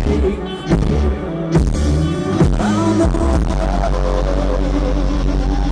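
Rock band playing live, loud through a festival PA: heavy bass with big drum hits about a second apart in the first half, then steady held chords.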